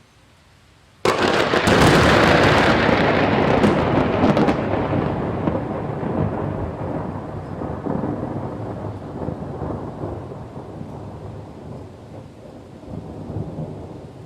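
A thunderclap: a sudden loud crack about a second in, crackling for a few seconds, then a long rolling rumble that slowly fades.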